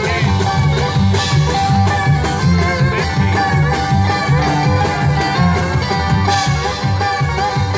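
Live acoustic trio playing an instrumental passage: a small-bodied guitar picking a lead line over a plucked upright bass walking a steady low pulse, with drums keeping time.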